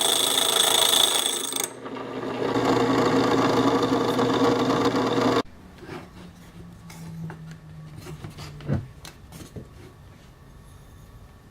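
Water-lubricated diamond hole saw grinding through a glass bottle with a high whine. About two seconds in the whine stops while the drill keeps running with a lower drone. The drill cuts off about five seconds in and its hum winds down, followed by a knock and a few light clicks as the first hole is finished.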